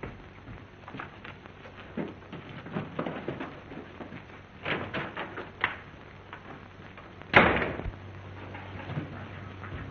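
A few scattered light knocks and shuffles, then a door slamming shut about seven seconds in, loud and sharp with a short ring after it, over a steady low hum.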